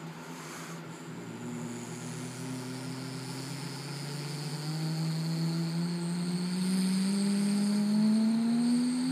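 A man imitating a Boeing 747's jet engines with his mouth: a hummed drone over a breathy hiss that rises slowly and steadily in pitch and grows louder, like engines spooling up for the takeoff roll.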